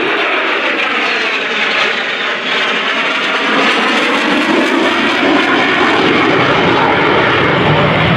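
An F/A-18 Super Hornet's twin GE F414 turbofan engines in a fast display pass: loud, steady jet noise with a sweeping shift in pitch as it goes by. The low rumble grows heavier over the last few seconds.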